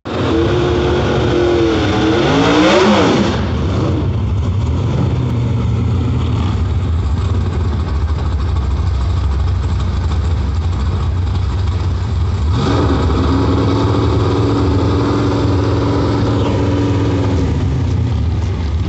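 Drag-race Chevrolet Monte Carlo's engine idling with a heavy, steady rumble at the starting line. It is revved up in the first few seconds, rising in pitch, and later held at a steady higher pitch for about four seconds past the middle before dropping back to idle.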